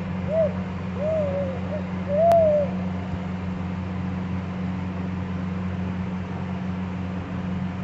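A baby cooing: four or five short, high 'ooh' sounds that rise and fall in pitch, all in the first three seconds, over a steady low hum.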